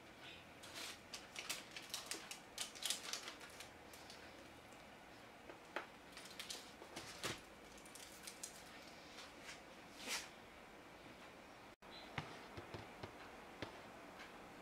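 Faint crisp crackling and ticking as a freshly baked poğaça with a crisp crust is torn apart by hand. The crackles are dense for the first few seconds, then scattered.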